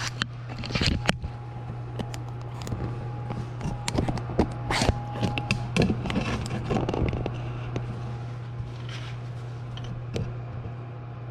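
Scattered clicks, taps and short scrapes of tools and metal parts being handled, most of them in the first seven seconds, over a steady low hum.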